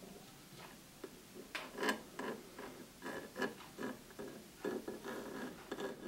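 Irregular small clicks and crinkles from a crumpled metal tube of clear adhesive being squeezed by hand, with light handling of the speaker's foam surround; the ticks become denser about a second and a half in.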